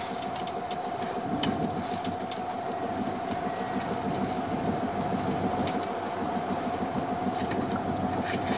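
Small fishing boat's engine running steadily at idle, with a constant whine over it and a few light knocks and rattles as a lobster pot is handled at the gunwale.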